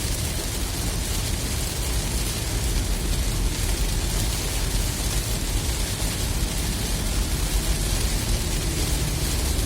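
Heavy rain on a car driving at speed: a steady hiss of rain and tyre spray over a low road rumble.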